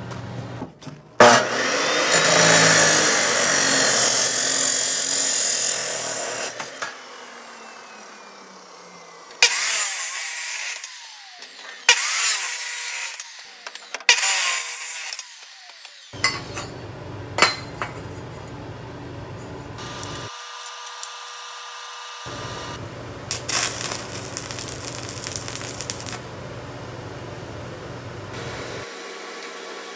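Makita abrasive cut-off saw running and cutting steel square tubing in several loud cuts, its motor spinning down after a cut. Later comes a quieter stretch with short crackling tack welds.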